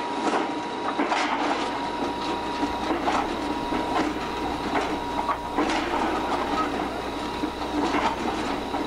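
Soilmec piling drill rig running steadily while its rotary drive spins the opened belling tool to throw out the packed dirt, with irregular knocks and clanks throughout.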